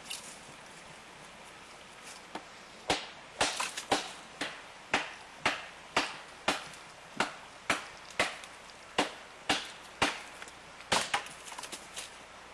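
Wood being chopped: a run of sharp, separate strikes, about two a second, starting about three seconds in and stopping near the end.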